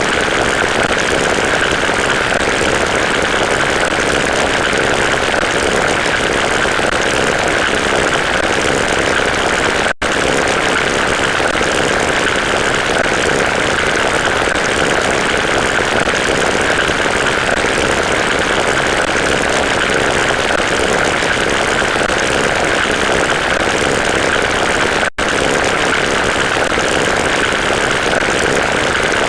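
Loud, steady rushing drone with no changing pitch, most prominent in a band in the upper-middle range. It cuts out for an instant twice, about fifteen seconds apart, as a looped sound restarts.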